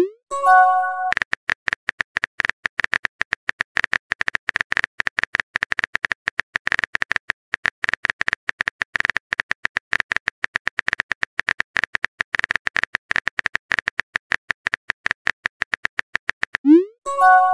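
Texting-app sound effects: a fast, continuous patter of keyboard typing clicks. At the start and again near the end there is a rising whoosh followed by a short chime, the sound of a message being sent.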